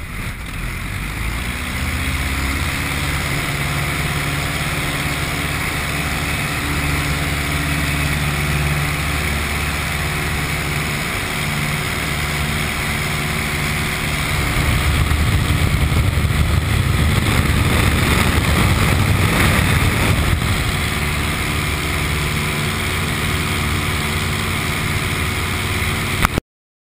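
Piper Cub's engine and propeller heard from inside the cockpit, rising in pitch as power comes up during the first two seconds, then running steadily at takeoff power and getting louder about halfway through. The sound cuts off suddenly near the end.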